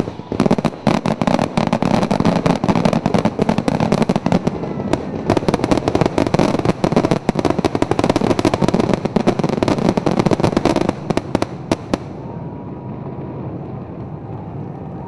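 Fireworks finale: a dense, rapid barrage of aerial shell bursts, many bangs a second. It stops suddenly about twelve seconds in, leaving a quieter background.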